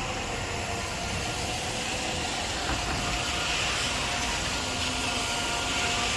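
Steady rain and wind making an even hiss, with a faint steady hum underneath.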